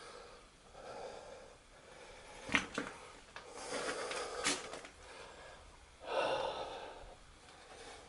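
A person breathing heavily: three slow, audible exhales a few seconds apart, with a few short sharp knocks in between.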